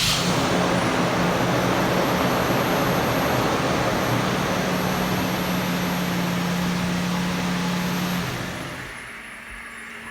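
2012 Toyota Tacoma engine running at a steady fast idle just after a remote start, then settling to a lower, quieter idle about eight seconds in.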